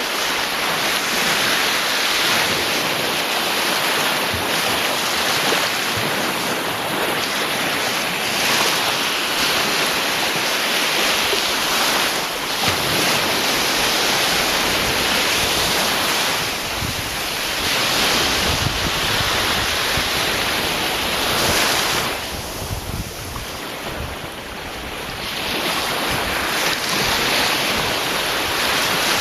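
Ocean surf: waves breaking and washing in a continuous rushing that swells and eases, with a brief lull late on.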